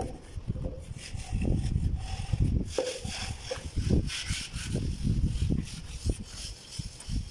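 Hand floats rubbing and scraping over fresh cement plaster on a wall, in irregular repeated strokes.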